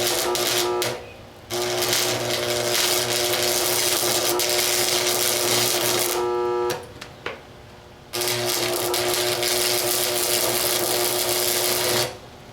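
Electric arc welding: a loud, steady crackling hiss with a constant buzz, in three runs of welding. It stops briefly about a second in and again for over a second past the middle, as beads are laid to fill gaps in a steel weld seam.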